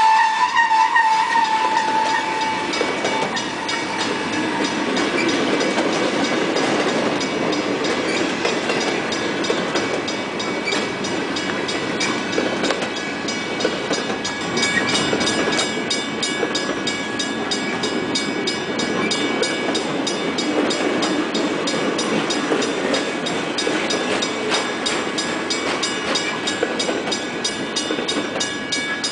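Loaded flatcars of a freight train rolling past steadily, wheels rumbling on the rails, with a wavering high squeal from the wheels in the first couple of seconds. From about halfway, a grade-crossing bell rings rapidly over the rolling noise.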